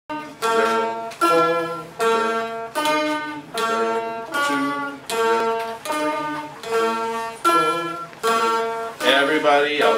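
One-string dulcimer played as single struck notes, about one a second, each ringing and fading before the next, stepping through a simple tune. Near the end more notes crowd in and the sound gets thicker and busier.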